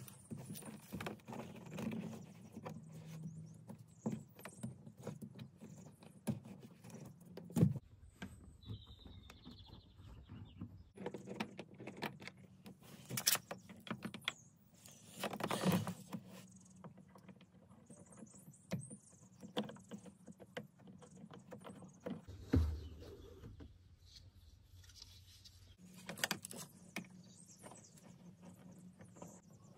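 Scattered clicks, scrapes and taps of hand tools working at the plastic door-card trim of a BMW E46 front door as the card is taken off, with a few sharper knocks standing out.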